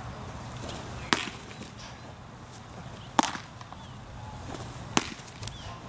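Baseball smacking into a catcher's mitt, three sharp catches about two seconds apart.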